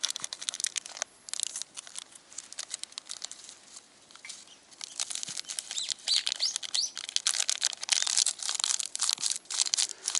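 Instant-ramen soup-base sachet being torn open and squeezed out, a crinkling, crackling rustle of the packet that grows busier about halfway through.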